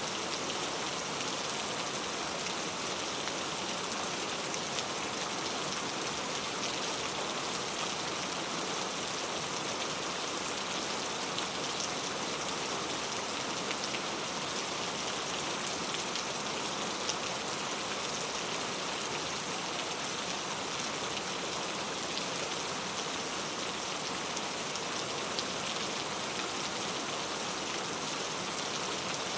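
Steady rain ambience: an even hiss of rainfall with faint, scattered drop ticks.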